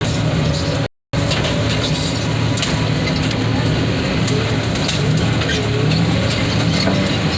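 Heavy diesel machinery running steadily with a deep engine drone and faint hydraulic whines. The sound cuts out completely for a moment about a second in.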